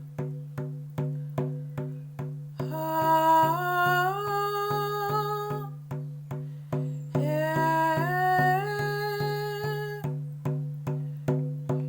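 A woman singing a wordless melody in two long phrases, each stepping upward in pitch, over a plucked string instrument repeating notes about two to three times a second above a steady low drone.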